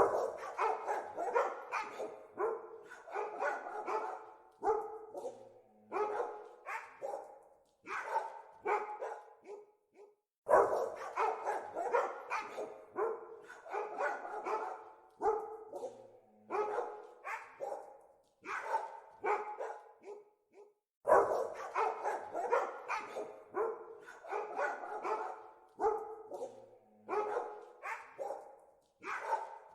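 Dogs barking in fast, repeated flurries of short barks, several a second, broken by brief pauses about ten and twenty-one seconds in.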